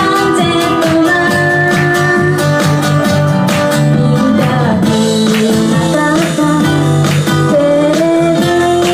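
Live acoustic pop song: a steadily strummed acoustic guitar and a keyboard, with a woman singing a melody over them.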